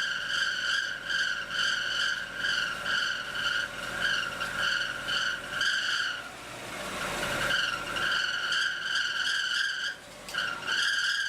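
A high-pitched squeal from a car's engine, pulsing a few times a second. It is the same noise that comes when the AC compressor engages. About six seconds in it gives way for a couple of seconds to a rushing noise that swells and fades, then the squeal returns, cutting out briefly near the end.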